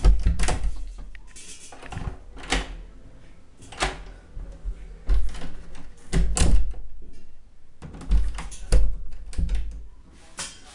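A door being worked open and shut over and over, its lever handle and latch clicking and the door knocking and thudding against its freshly mortared frame, about ten knocks in all.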